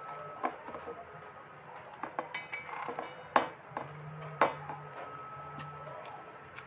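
Stainless steel plate clinking and scraping as someone eats from it face-down, pushing it about with the mouth; a string of sharp clinks, the loudest about three and a half and four and a half seconds in.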